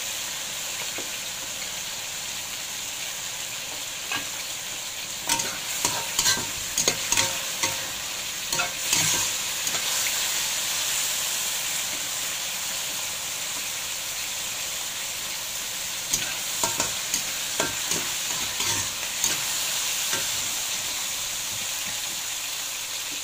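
Eggplant with chili and dried prawn sizzling steadily in an oiled wok, while a metal spatula scrapes and clinks against the wok to stir it, in bursts about five seconds in and again about sixteen seconds in.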